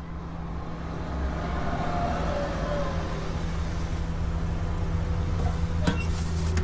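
Low, steady rumble that grows louder, with a faint falling tone about two seconds in and a single sharp click near the end.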